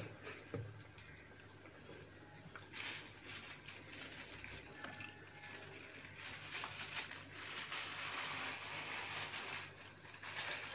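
Urad dal vadai deep-frying in hot oil in a kadai: a steady sizzling hiss with faint crackle, growing louder in the second half.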